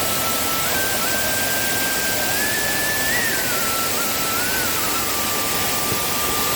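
Waterfall in heavy rainy-season flow, a steady roar of rushing water. A faint thin melody line, holding notes and stepping between them, runs over it.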